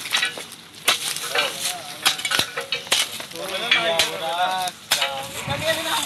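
Water and drill cuttings pouring from a borewell drilling rig's discharge chute and splashing onto the ground, with scattered knocks and clicks. Voices call out briefly a little past the middle.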